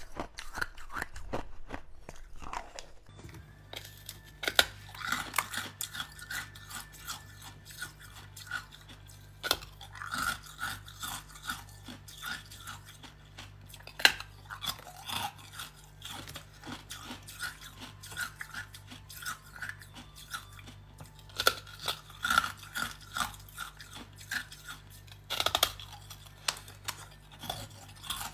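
Ice being bitten and chewed, with repeated crisp crunches: first small green ice cubes, then frosted ice bitten and scraped off the edge of a plastic ice-cube tray with the teeth.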